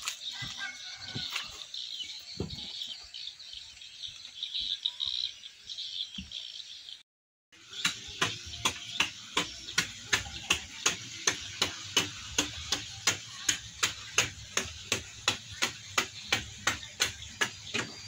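Outdoor background with a few bird chirps over a steady high hiss. After a brief cut to silence, even sharp ticks come about three times a second over a low hum.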